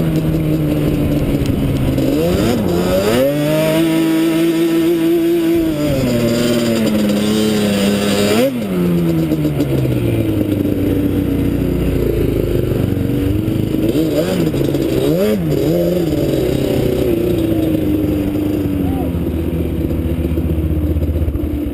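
Sport quad's engine heard from on board while riding on sand. It revs up and holds high about 3 seconds in, drops off sharply after about 8 seconds, then revs up and down in shorter blips as it slows, with wind noise over it.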